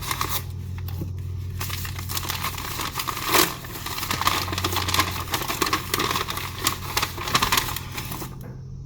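Shipping package being torn open: paper or plastic packaging ripping, rustling and crinkling, with one sharp rip about three and a half seconds in. A steady low hum runs underneath.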